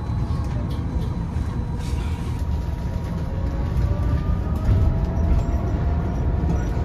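City bus heard from inside while it drives along: a steady low rumble of engine and road, with a faint whine that rises and falls in pitch.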